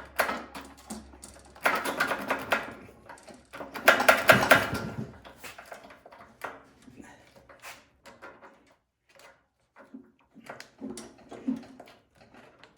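Hands and tools working on a snowblower's carburetor: the rubber fuel line being twisted and wiggled off its fitting, with scraping, rattling and clicking. Two louder bouts of rattling in the first half give way to scattered clicks.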